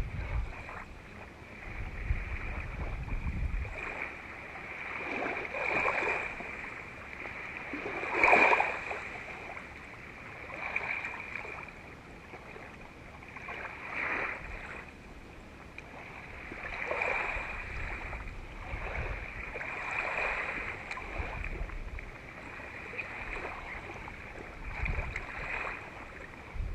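Small waves lapping gently in the shallows, with soft swells of water sound every few seconds. Low wind rumble on the microphone for the first few seconds.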